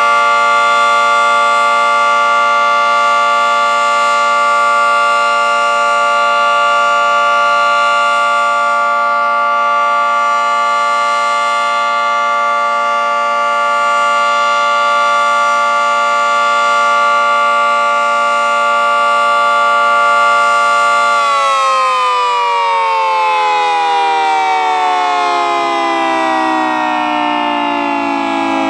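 Federal Signal 2T22 two-tone outdoor warning siren sounding its steady alert chord, then, about three-quarters of the way through, winding down with its pitch falling smoothly as the alert signal ends.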